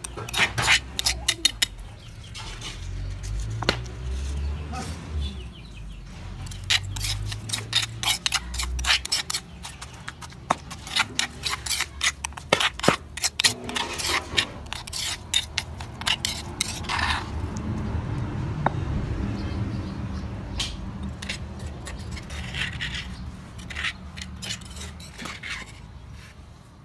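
Metal spoon clinking and scraping against a stone mortar as it stirs and presses a chopped chili and tamarind paste: rapid irregular clicks that thin out about two-thirds of the way through.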